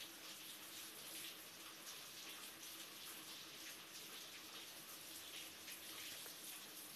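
Heavy rain falling, a faint, steady, even hiss, with a faint low hum underneath.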